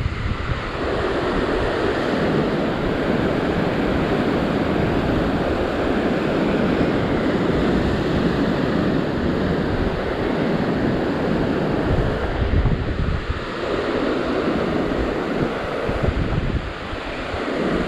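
Ocean surf surging and breaking against the rock ledge just below, washing in and out in swells, with wind buffeting the microphone.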